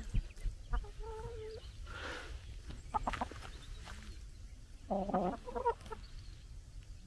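Hens clucking as they forage and peck, with a short call about a second in and another run of clucks about five seconds in.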